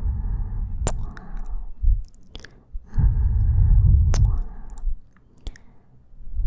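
Close-miked ASMR breathing and kissing: two slow breaths, each about a second and a half, blown right against the microphone, with sharp wet kiss and lip-smack clicks between them.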